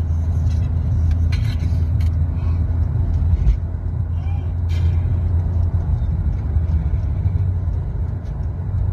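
Steady low road rumble of a car cruising on a highway, heard from inside the cabin: engine and tyre noise, with a few brief faint clicks.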